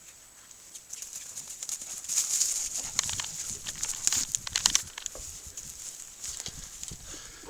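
Animal paws and claws tapping and scuffling: a run of quick, irregular clicks and scrapes, loudest from about two to five seconds in.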